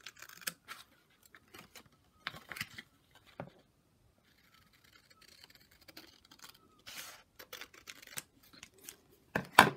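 Scissors cutting through a sheet of card: a run of short, irregular snips, pausing briefly about three and a half seconds in, with a louder snip near the end.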